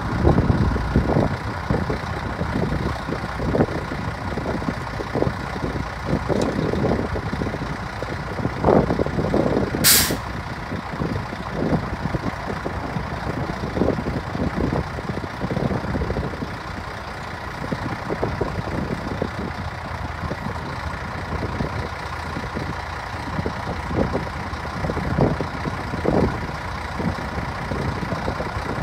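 Volvo dump truck's diesel engine running steadily, with one short, loud hiss of released air about ten seconds in.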